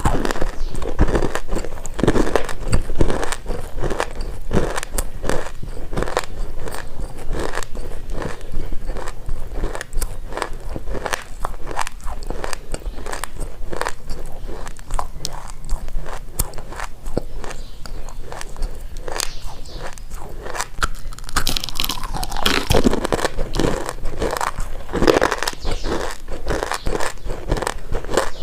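Chunks of baked loess subsoil being bitten and chewed close up: a dense run of dry, brittle crunches, a little stronger in the last third.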